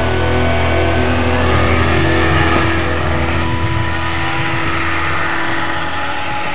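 Snowmobile engine running and revving as the sled rides across snow, with music under it that fades away about five seconds in.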